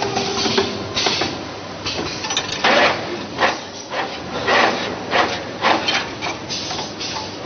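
Pneumatic CNC 2D wire bending machine working through its bending cycle: irregular clacks and short noisy surges, about one or two a second, as its air-driven cylinders feed and bend the wire.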